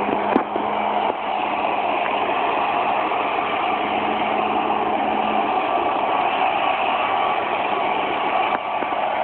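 Electric hover lawnmower running steadily, its motor and blade giving a continuous whir.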